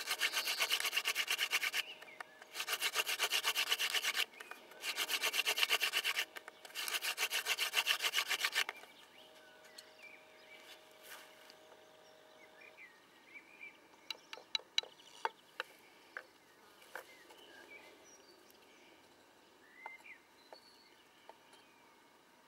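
Hand-drill friction fire: a mullein spindle twirled between the palms on a spruce hearth board, a dry wooden rubbing in four runs of about two seconds each, with short breaks as the hands go back to the top of the spindle. The drilling stops about nine seconds in, leaving faint clicks and light chirps.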